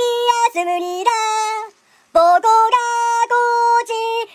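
A high-pitched voice singing a simple melody in short held notes, each about half a second long, with a brief pause a little before halfway through.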